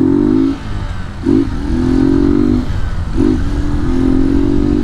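Honda Titan 150's single-cylinder four-stroke engine pulling under load as the motorcycle accelerates, the engine note breaking off briefly twice for upshifts and picking up again after each.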